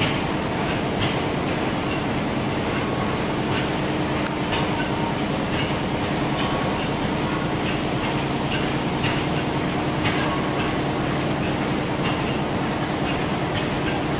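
Old engines running in a big shed: a steady mechanical hum with a frequent, uneven clatter of light clicks and knocks.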